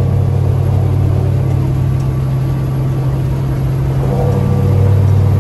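Semi-truck engine drone and road noise heard from inside the cab while cruising at highway speed, a steady low hum that swells slightly near the end.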